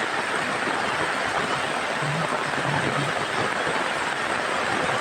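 Heavy rain falling steadily, an even, unbroken rush of sound.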